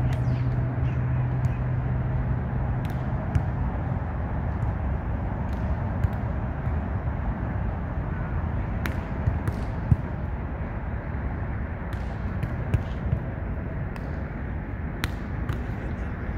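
Beach volleyball struck by players' hands and forearms during a rally: sharp slaps at irregular intervals, the loudest about ten seconds in, over a steady rumble of traffic on the elevated roadway overhead.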